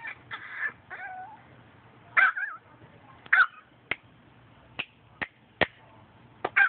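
An animal crying: two loud wavering cries about two and three and a half seconds in, then a string of short, sharp squeaks.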